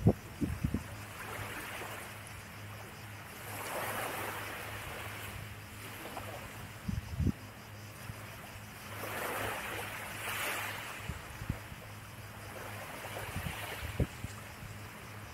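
Small waves washing onto a sandy beach, the surf swelling every few seconds, with a few brief low buffets of wind on the microphone.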